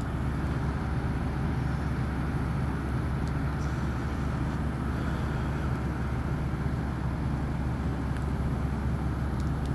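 A steady low mechanical hum with an even hiss over it, unchanging throughout, like an idling engine or running motor.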